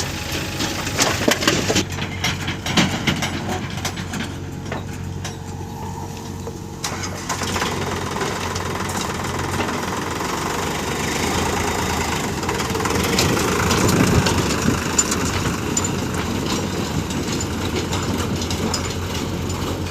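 Diesel engine of heavy earthmoving machinery running steadily, with scattered clanks in the first couple of seconds. The engine sound grows fuller partway through.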